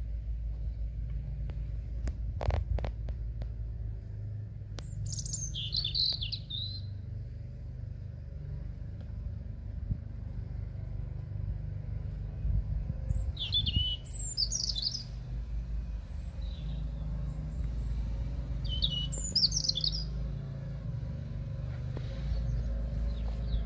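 A songbird singing three short, high, warbling phrases several seconds apart, over a steady low rumble.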